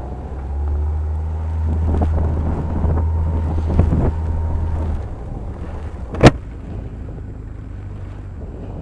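Strong wind buffeting the microphone over a motorcycle's running engine: a heavy low rumble that eases after about five seconds. A single sharp knock comes about six seconds in.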